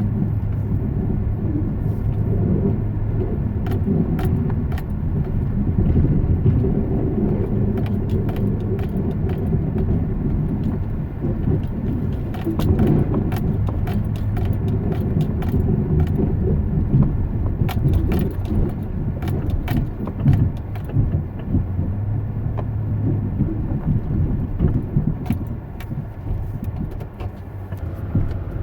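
A motor vehicle running with a steady low hum, with many light clicks and jingles scattered over it.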